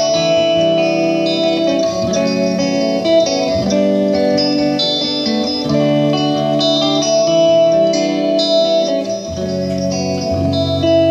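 Two electric guitars playing a slow instrumental passage live through effects, chords changing every second or two over a steady held note.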